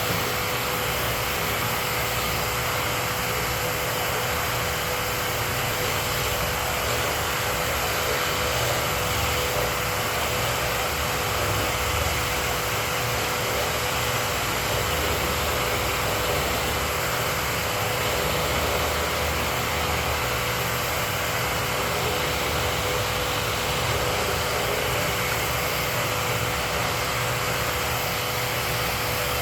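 Workshop dust-collection vacuum running steadily: a continuous rush of air with a constant motor whine.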